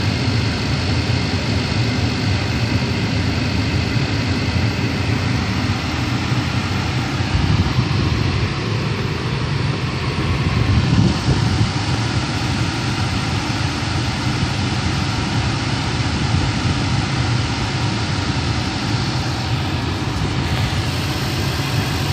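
Car's air-conditioning blower running steadily on recirculation, together with the engine idling, heard inside the cabin.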